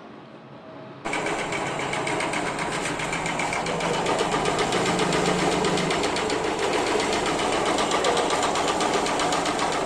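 Honda Unicorn's single-cylinder engine running with a loud, rapid, steady mechanical clatter that starts about a second in. The clatter comes from a loose cam chain inside the engine; the tappets and rockers are fine.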